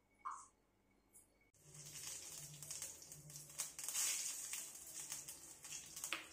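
Hot oil sizzling and crackling in a kadai on a gas stove, starting about a second and a half in.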